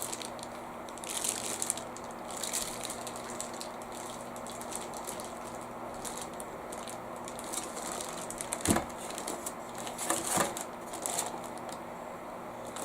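Handling noises as a Thermaltake Core P3 PC case and its parts are moved and examined: scattered rustling and light clicks, with two sharper knocks a little under two seconds apart near the end.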